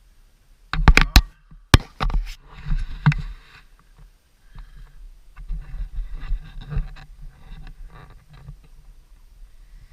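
A few sharp knocks close to the microphone about a second in, followed by scraping and rustling that fade to quieter irregular scrapes.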